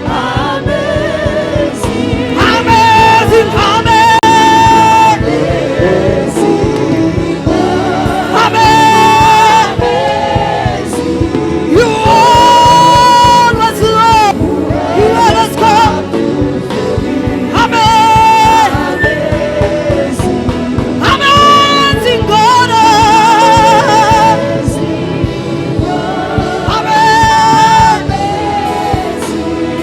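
Gospel worship song: a singer holding long notes every few seconds over steady musical accompaniment, with other voices joining in.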